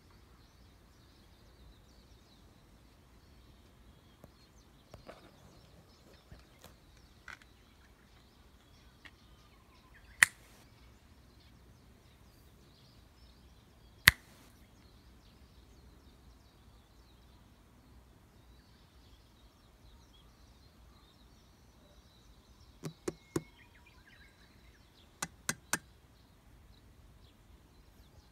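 Sharp clicks over a faint steady background hiss: a single one about ten seconds in, a louder single one about fourteen seconds in, then two quick runs of three near the end.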